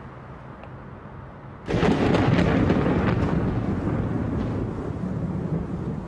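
A sudden thunderclap about two seconds in, followed by a deep rumble that slowly fades.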